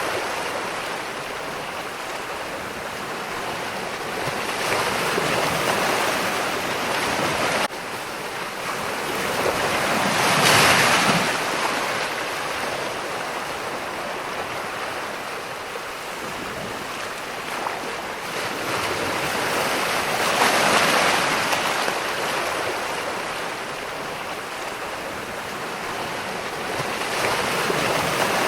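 Ocean surf: a steady wash of waves with a surge of breaking water every several seconds, the loudest about ten and twenty seconds in. The level drops suddenly about eight seconds in.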